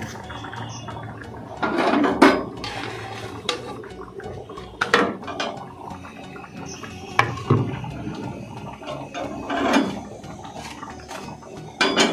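Metal kitchen tongs clattering and scraping against an iron tawa and gas burner grate in a few short bursts, as a roti is turned and puffed over the open flame, over a steady background hiss.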